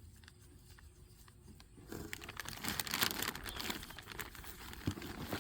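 Packaging being crumpled and rustled while new suspension parts are unpacked, starting about two seconds in after a quiet stretch, with a light knock near the end.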